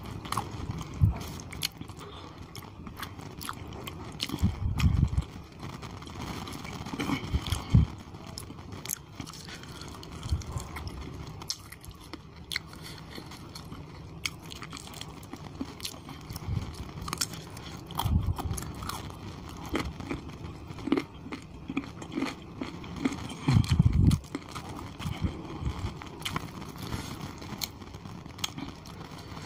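Close-miked wet chewing and mouth smacking of mouthfuls of chicken curry and khichuri, with irregular sharp clicks and a few louder low thumps, and wet squelching of fingers gathering rice and gravy on the plate.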